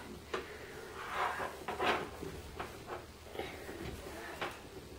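Quiet handling noise: scattered soft knocks and clicks as a toddler handles a phone held to her ear and the plastic toys around her.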